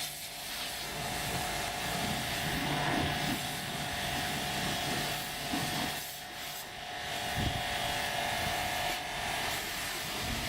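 Car Member C200 electric high-pressure washer running, its motor giving a steady whine over the hiss of the water spray. The sound drops briefly about six seconds in, then picks up again.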